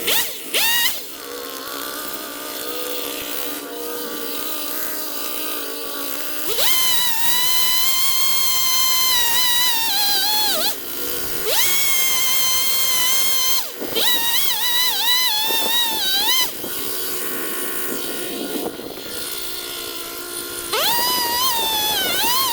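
Chainsaw cutting a dead tree: a steady high whine that drops in pitch for stretches and dips sharply several times as the chain bogs down in the wood, then climbs back up.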